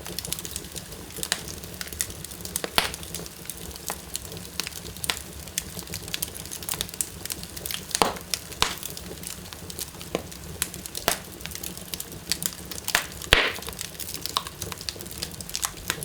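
Wood fire burning in a fireplace: a steady low rumble of flames with frequent sharp crackles and pops throughout, the loudest pops about eight seconds in and again near thirteen and a half seconds.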